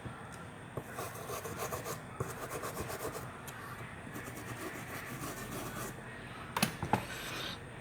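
Quick, irregular rubbing or scraping strokes, a hand tool working a small hard surface, followed by two sharp clicks near the end.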